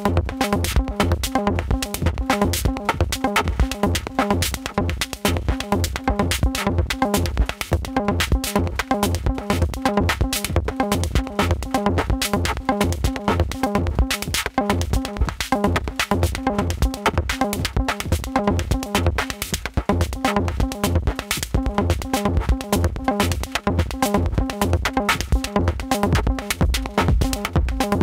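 Electronic music with a steady drum-machine beat, synthesizer tones and deep bass.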